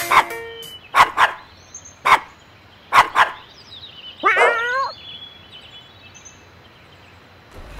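Cartoon pet characters' sound effects: a series of short dog-like barks, some in pairs, then one longer yelping call that rises and falls in pitch.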